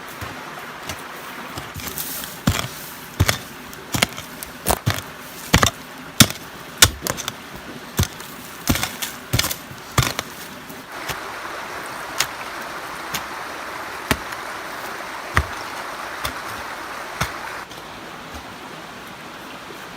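A series of sharp, irregular knocks and chops, roughly one or two a second, over a steady rushing noise that grows louder for several seconds past the middle. The knocks die out near the end.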